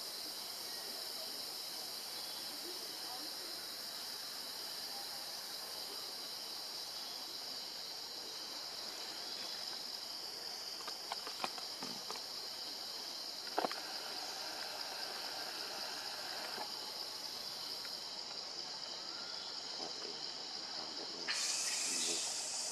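Steady outdoor insect chorus, a high shrill drone, with a few sharp clicks near the middle. A louder hiss joins near the end.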